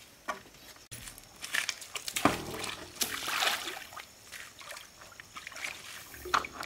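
Water sloshing and splashing in a shallow, stony stream as a corrugated plastic pump hose is lifted and handled in it, with scattered knocks and clatter. The pump engine is not running.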